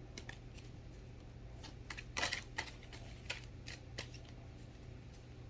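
Oracle cards being handled: a few soft clicks and swishes of card stock, the loudest about two seconds in, over a faint steady hum.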